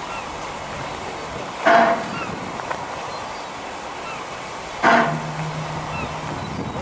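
Stationary LNER A4 Pacific steam locomotive hissing, with two short, sharp bursts of steam about three seconds apart. A low steady hum follows the second burst for a second or so.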